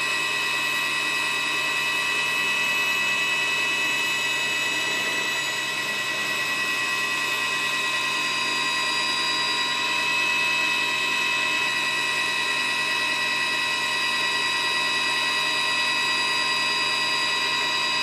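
Steady high-pitched whine of a helicopter's turbine engine, several tones at once that hold unchanged throughout.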